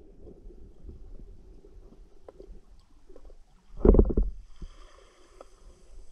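Underwater sound picked up through a camera housing while spearfishing: a low rumble of moving water with faint scattered clicks and ticks, and one brief, louder burst of low noise about four seconds in.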